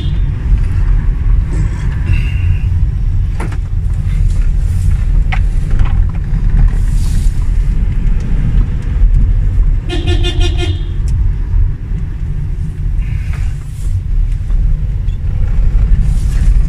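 Steady road and engine rumble heard from inside a moving car's cabin, with a car horn sounding once briefly about ten seconds in.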